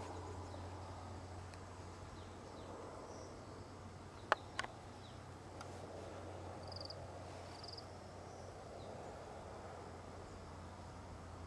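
Faint outdoor garden ambience: a steady low hum and hiss with a few short, high chirps scattered through it. Two sharp clicks about four seconds in are the loudest sounds.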